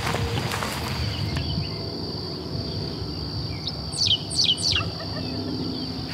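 Footsteps swishing through tall grass for about the first second, under a steady high insect trill. About four seconds in, a bird gives three quick down-slurred whistled notes.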